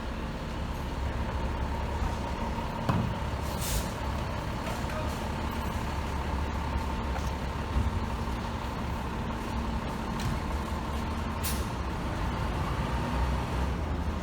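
Heavy diesel truck engine running with a steady low rumble, with two short air-brake hisses, one about four seconds in and one after about eleven seconds.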